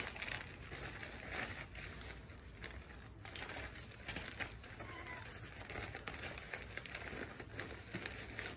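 A clear plastic bag crinkling and a fabric grill cover rustling as they are handled and unfolded, with irregular crackles throughout.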